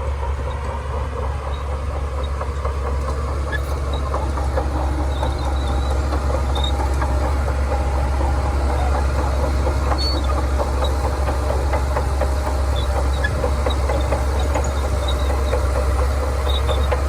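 Shantui crawler bulldozer working: its diesel engine running steadily under a deep hum, with the rattle and clank of the steel tracks over it, growing slightly louder in the first few seconds.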